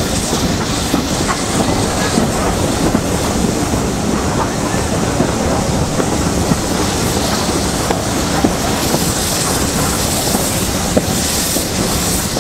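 Passenger train running on the rails, heard from an open carriage window: a steady rumble with the clickety-clack of wheels over the track.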